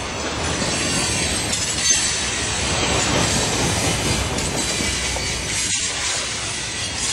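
Freight train's open-top cars rolling past close by: a steady rumble and rush of steel wheels on the rails, with a sharp clank about two seconds in.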